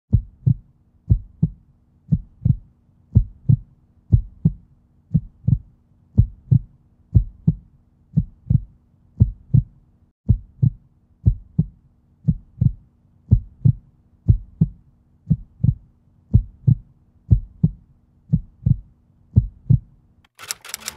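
Heartbeat sound effect: paired low thumps repeating about once a second, over a faint steady hum. Near the end a denser, fuller sound cuts in.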